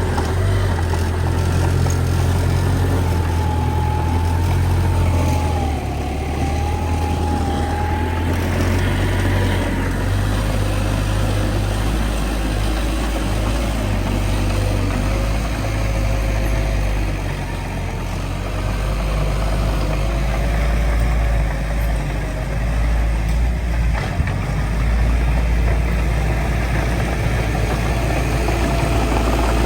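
Heavy diesel engine of earthmoving equipment, a bulldozer or dump truck, running steadily with a deep low rumble and a faint wavering whine above it. A single sharp click sounds about three-quarters of the way through.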